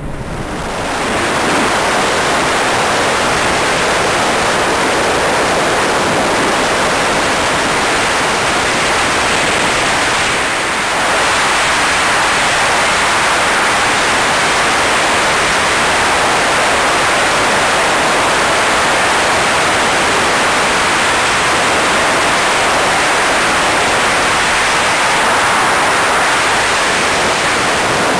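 Steady loud rush of wind over the microphone from a moving car, mixed with road noise. It builds up about a second in and dips briefly around ten seconds in.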